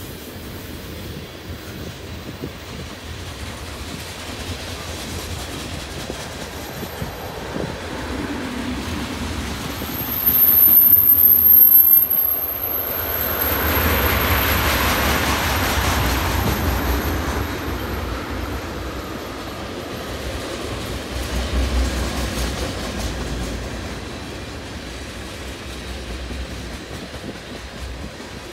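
Freight train tank cars rolling past, their wheels rumbling steadily on the rails, with a high thin wheel squeal that rises about ten seconds in and is loudest for a couple of seconds.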